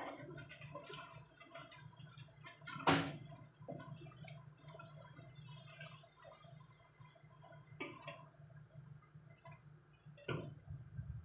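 Wooden spatula knocking and scraping against a granite-coated pot while rice noodles are stirred and tossed, with a sharp knock about three seconds in and another near the end. A steady low hum runs underneath.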